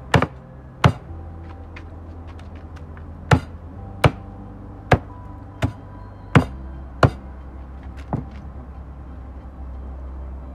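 Knife chopping through puffer fish onto a cutting board: about nine sharp chops at uneven spacing over some eight seconds, over a steady low hum.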